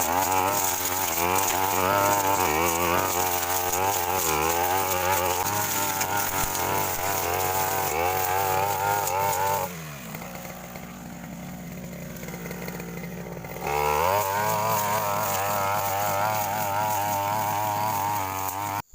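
Stihl two-stroke brush cutter running at high revs, its pitch wavering as the blade cuts through brush. About ten seconds in it drops to idle, and some four seconds later it revs back up, then cuts off suddenly.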